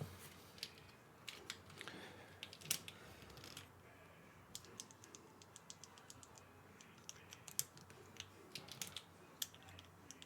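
Plastic keycaps being handled and pressed onto a mechanical keyboard's switches: scattered light clicks and taps at an uneven pace, some in quick runs.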